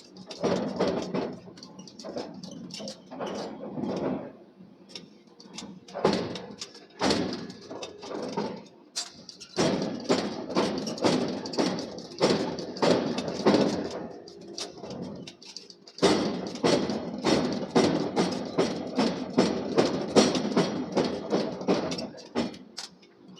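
Rapid, irregular knocks and clanks from forging work on steel, several a second, with a brief pause about two-thirds of the way through.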